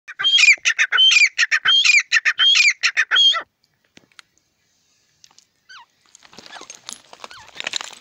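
Grey francolin giving its loud, rhythmic 'ka-tee-tar' call: a quick run of rising and falling notes, repeated about four times over the first three and a half seconds, then stopping. Fainter chirps and scuffling noise follow near the end.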